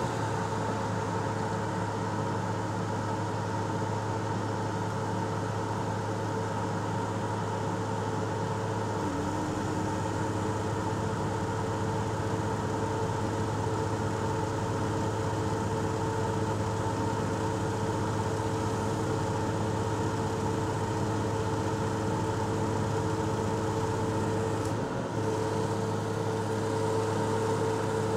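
A bus's engine and air compressor running steadily, heard inside the bus through a grille: a continuous hum with a steady whine over it. A further tone joins about nine seconds in.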